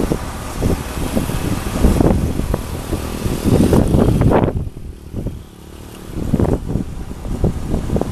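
Kobelco SK200 excavator's diesel engine running while it holds a load, heavily buffeted by wind on the microphone, which eases for a moment about halfway through.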